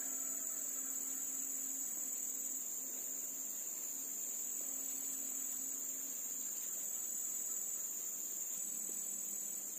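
Steady, high-pitched drone of a chorus of insects, continuous and unchanging throughout.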